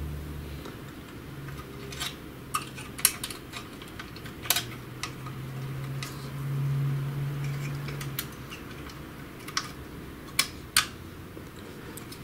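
About ten irregular sharp clicks and taps of small printer parts being handled and pressed into place, as the roller bushings are fitted into their seats on a Samsung ML-1210 laser printer, with a low hum behind.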